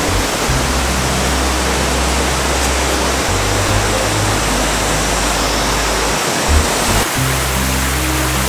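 Steady rush of a mountain stream, with background music carrying low held bass notes that change every few seconds.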